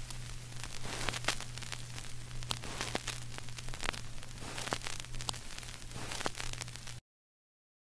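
Crackling static: a steady hiss with scattered clicks over a low hum, cutting off suddenly to silence near the end.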